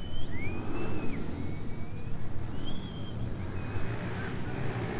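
Motorcycle engines running at idle, a steady low rumble that wavers a little, with a few high gliding whistles over it in the first few seconds.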